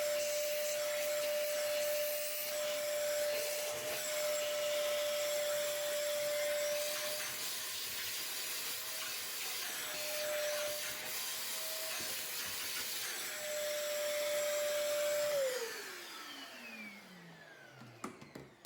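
Shop vac rigged for wet vacuuming, running with a steady whine over a rushing hiss as it cleans out the bottom of a dishwasher. About fifteen seconds in it is switched off and the motor winds down, its pitch falling steadily.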